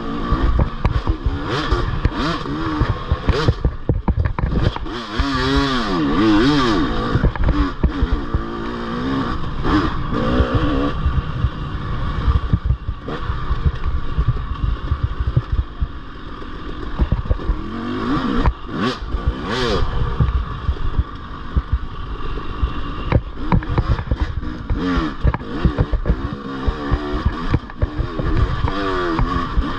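Off-road dirt bike engine revving up and down over and over while riding a rough trail, with frequent clatter and knocks from the bike over the terrain.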